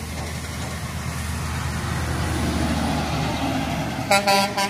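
Water tanker truck approaching and driving past, its engine and tyre noise growing louder, then sounding its horn in a few short toots near the end.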